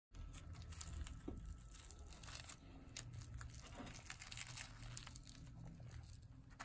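Faint crackling and tearing of a crisp, flaky paratha roll being pulled apart by hand, many small irregular crackles over a low hum.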